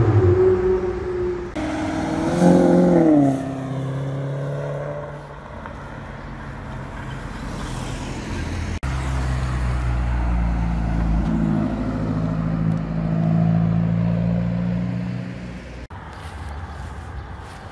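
Supercar engines revving and accelerating, in several short cut-together clips. About two seconds in, the engine note dips and climbs again as the car shifts. From about nine seconds in comes a long, deep engine note with a strong low rumble, before a cut near the end.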